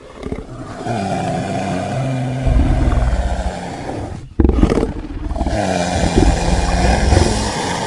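Giant piranha creature sound effect: a growl with a wavering pitch, in two long stretches broken once briefly just past the middle.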